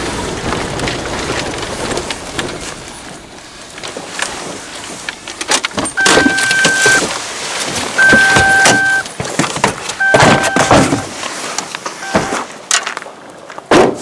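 Car cabin noise as it rolls to a stop, then the door opens and the car's warning chime beeps four times, each tone about a second long with a second's gap, amid knocks and rustling of someone getting out. A heavy thud near the end, like the door shutting.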